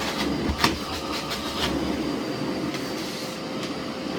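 Miele Blizzard CX1 Cat & Dog PowerLine bagless vacuum cleaner running steadily with a thin whine, while a run of sharp clicks and knocks comes through the floor tool in the first two seconds, the loudest about two-thirds of a second in.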